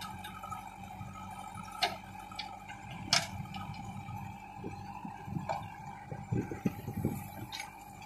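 Diesel engines of a JCB 3DX backhoe loader and a Sonalika tractor running steadily. Two sharp knocks come about two and three seconds in. Near the end, loose soil and clods tumble with an irregular rumble as the bucket tips its load into the tractor's trolley.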